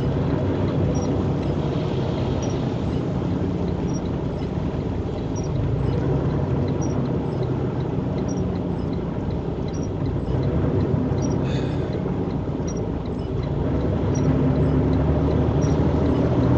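Cabin noise of a vehicle driving on a rain-soaked highway: a steady engine drone under the hiss of tyres on wet pavement, growing a little louder near the end. A faint tick repeats about every second and a half.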